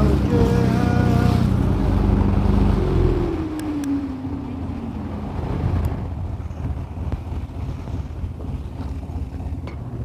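Fishing boat's engine running under way, then throttled back about three seconds in, its pitch falling and the sound dropping as the boat slows. Wind and water rush against the hull remain afterwards.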